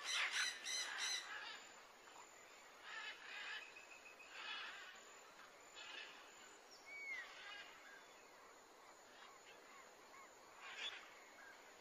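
Faint outdoor ambience with scattered short bird calls, a few of them quick chirps that swoop in pitch.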